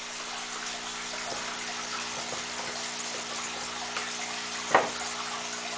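Steady background hiss with a low, even hum, and one short knock about three-quarters of the way through.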